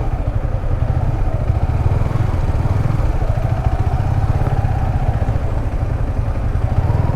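Motorcycle engine running under a heavy low rumble, its pitch rising and falling a little.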